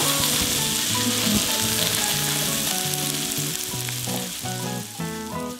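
Vegetables and spices frying in a pan, a steady sizzle that slowly fades, over soft background music with short held notes.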